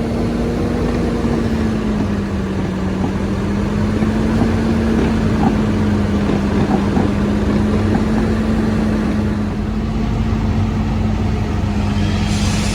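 Fire apparatus engine running steadily, a constant low hum over a rumble, with a hiss coming in near the end.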